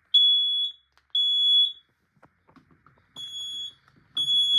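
Smoke alarm sounding after being set off by aerosol test smoke: high-pitched beeps about half a second long, two near the start, a pause of about a second and a half, then two more. It shows the detector passing its functional test.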